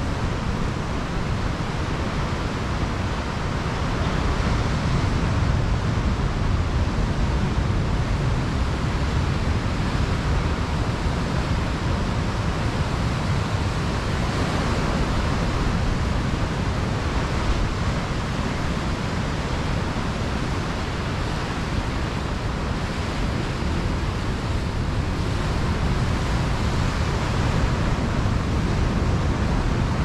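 Pacific Ocean surf breaking and washing up over a sandy beach: a continuous rushing roar with a deep low rumble, swelling slightly twice as bigger waves come in.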